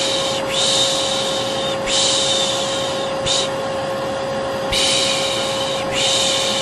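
Vacuum cleaner motor running with a steady hum, under a person's long rhythmic 'shhh' shushing sounds used to soothe a baby to sleep. The shushes come about once a second, with a pause of about a second in the middle.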